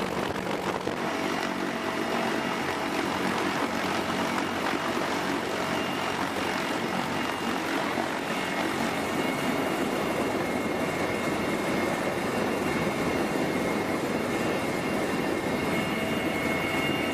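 CH-53E Super Stallion heavy-lift helicopter's three turboshaft engines and rotors running steadily: dense, unbroken rotor and engine noise with a faint, steady high whine.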